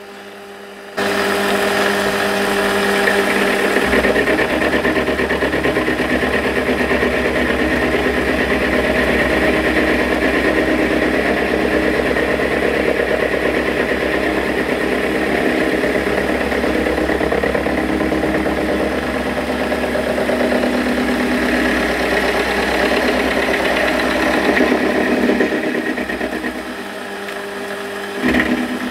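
Metal lathe running with a milling cutter in the chuck, taking a small cut off a workpiece clamped in the tool post: a steady machining whine that comes in sharply about a second in. It eases briefly near the end, then picks up again.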